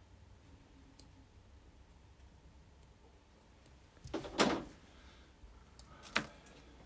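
Small clicks and handling noises from fly-tying tools and materials at the vise: a faint click about a second in, a louder brief scrape around four seconds in, and a sharp click near the end.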